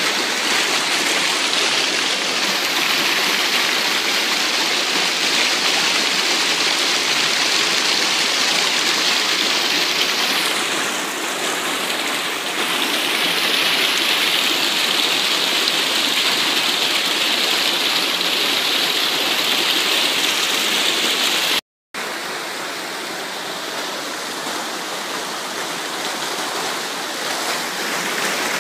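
Shallow river water rushing steadily over rocks. It cuts out for a moment about two-thirds of the way through and comes back a little softer.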